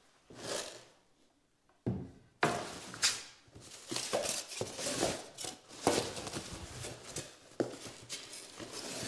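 Rustling, sliding and knocking of flat-pack cabinet panels being handled and set down, with several sharp knocks after a quiet start.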